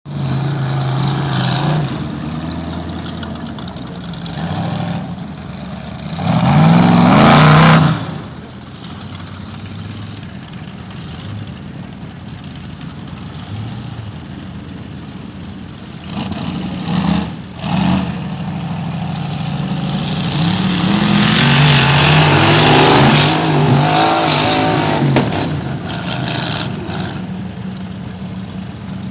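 Off-road tube-frame buggy engine revving hard under load on a steep hill climb, surging loudly about six seconds in and again for several seconds past the twenty-second mark, with two short throttle blips in between and a steady running note the rest of the time.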